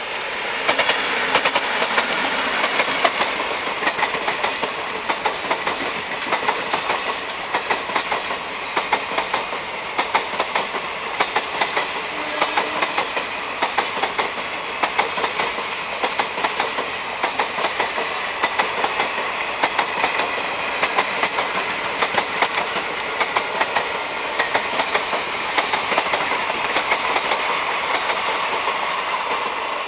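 Indian Railways express passenger coaches passing at speed, their wheels clattering over rail joints in a regular clickety-clack of clustered clicks about every second over a steady rumble. The sound eases slightly near the end as the last coaches go by.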